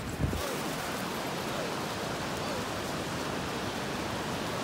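Steady wash of ocean surf and wind noise on the shore, with one brief low thump about a quarter second in.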